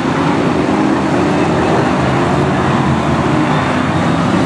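Several BriSCA F1 stock cars' V8 engines running together as the cars lap the track: a loud, steady drone.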